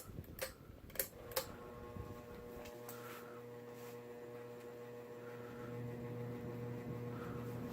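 A few sharp clicks, then a 52-inch Harbor Breeze Key West ceiling fan's motor humming steadily as it comes up to high speed, getting slightly louder. The steady buzz comes from its light globes.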